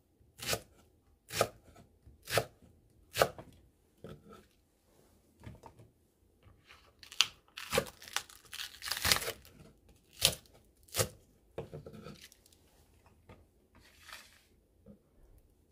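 Kitchen knife slicing a Korean green onion (daepa) on the diagonal on a cutting board: sharp knocks of the blade on the board, about one a second at first, then softer and more irregular, with a quick run of cuts around the middle.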